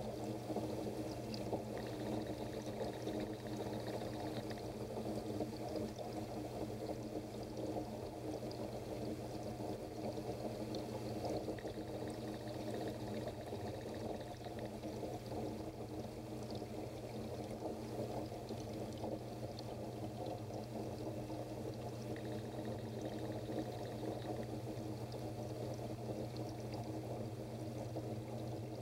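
Water in a goldfish aquarium pouring and splashing steadily, as from its filter or aeration, over a steady low hum.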